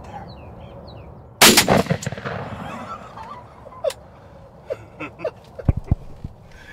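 A single shotgun blast about a second and a half in, with a short echoing tail: the shot at a longbeard turkey tom. Scattered light knocks and two dull thumps follow near the end.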